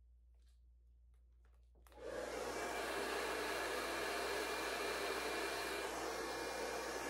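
A few faint clicks, then a handheld hair dryer switched on about two seconds in, blowing steadily with a constant whine in the rush of air.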